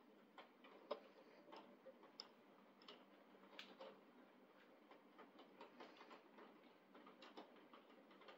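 Faint, irregular ticking of raindrops striking a window pane and sill during a thunderstorm, about one or two taps a second over a soft hiss, one tap louder about a second in.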